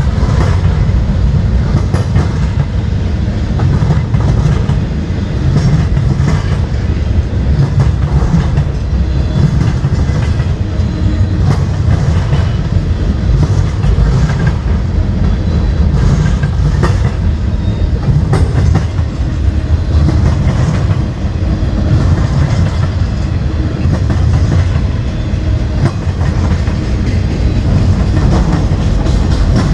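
A CSX freight train's flatcars, loaded with containers, roll past in a steady loud rumble, with irregular clacks from the wheels over the rail joints.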